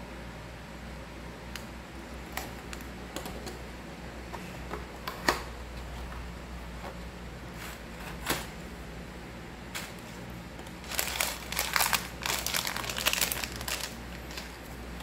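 A cardboard toy box being opened and handled, with scattered light clicks and taps. Then, about three-quarters of the way in, the loudest part: a few seconds of crinkling as a small plastic bag of micro building bricks is handled.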